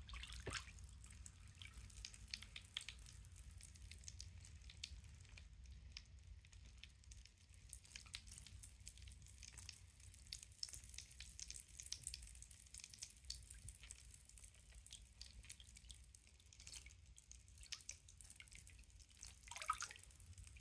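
Faint fizzing and crackling of magnesium salt dissolving in footbath water, many tiny bubbles popping. A water drop plinks just after the start and again, louder, near the end.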